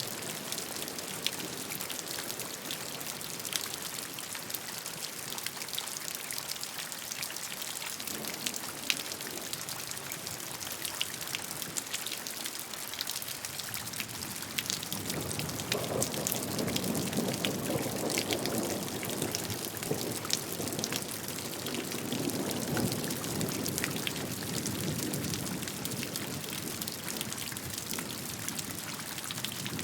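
Steady rainfall with dense pattering drops, swelling to a heavier, fuller rush about halfway through before easing back.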